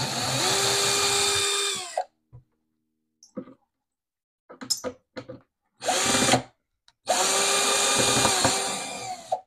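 Cordless drill/driver backing out the woofer's mounting screws from a wooden speaker cabinet. It gives three runs of steady motor whine, each winding down as it stops: about two seconds at the start, a short burst around six seconds in, and a longer run near the end. A few small clicks of handling come between the runs.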